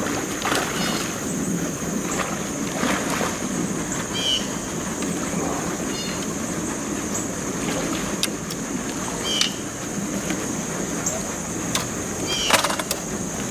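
A hooked catfish splashing and thrashing at the water's surface as it is drawn into a landing net, with a few sharper splashes. Under it runs a steady high-pitched insect buzz.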